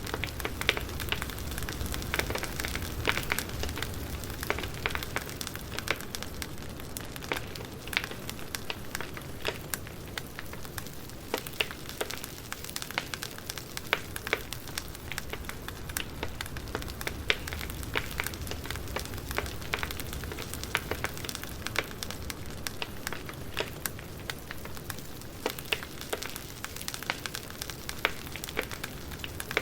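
Campfire burning: a steady low rumble of the flames with frequent sharp crackles and pops of burning wood.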